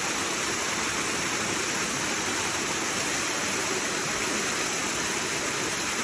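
Waterfall rushing: a steady, unbroken noise of falling water.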